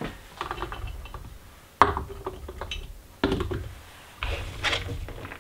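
Sharp knocks and light taps as chopped celery is scooped off a plastic cutting board and dropped through a plastic funnel into glass canning jars. There are four main knocks, each a second or so apart, with softer tapping between them.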